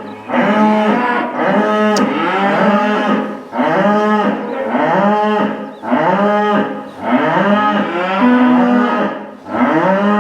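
A cow mooing loudly over and over, short calls following one another about once a second.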